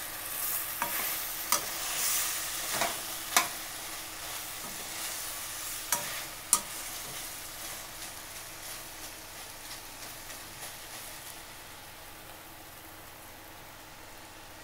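Chicken pieces sizzling in oil in a stainless steel pan, stirred with a perforated metal skimmer that scrapes and clinks against the pan a few times in the first half. The sizzle carries on steadily, a little quieter near the end.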